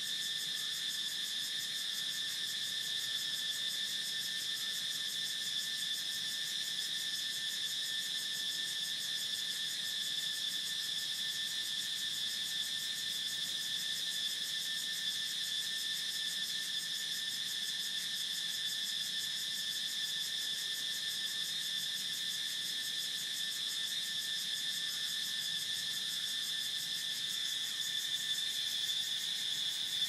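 Cicadas singing in a steady, unbroken high buzz that holds its pitch throughout.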